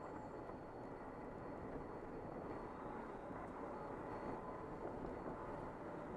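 Steady engine and road noise heard inside the cab of a Freightliner Cascadia semi truck as it drives along.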